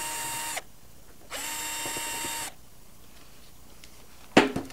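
Cordless drill with a screwdriver bit backing out the screws of a plasma torch handle: two short runs of about a second each, the motor whine rising as it spins up and dropping as it stops. Near the end, a couple of sharp knocks as the drill is set down on the steel bench.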